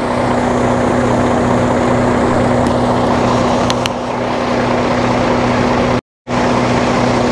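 Semi truck's diesel engine idling, a steady hum with an even rushing noise over it. The sound cuts out completely for a moment about six seconds in.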